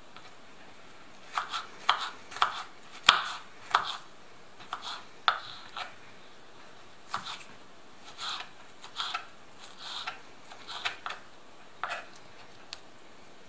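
Small kitchen knife dicing an onion on a wooden cutting board: irregular knocks of the blade through the onion onto the board, in quick clusters with short pauses between.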